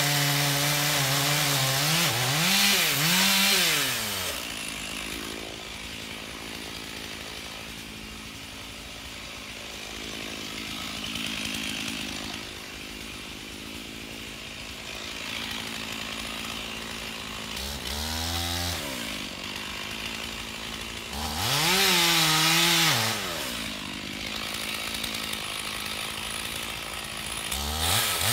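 Petrol chainsaw cutting into the base of a large standing tree. It runs steadily under load for the first couple of seconds and rises and falls briefly, then drops to a quieter idle. It is revved in short bursts three times later on, the longest about two-thirds of the way through.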